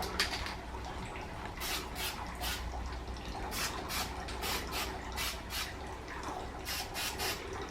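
Aerosol spray-paint can hissing in many short bursts, with a gap about six seconds in; the can's nozzle is cracked.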